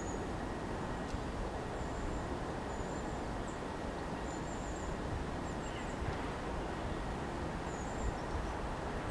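Steady low outdoor background noise with a small bird's short, high chirps several times.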